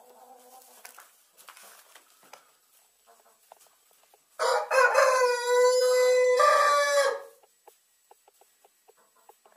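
A rooster crows once, a loud crow of several syllables lasting about three seconds that starts about four and a half seconds in. Before it, hens cluck softly among faint scratching clicks.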